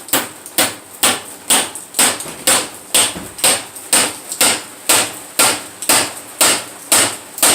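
Hammer striking metal in a steady rhythm, about two blows a second, driving a new door-hinge bearing into its hole in the hinge of a 1966 Chevrolet Impala door.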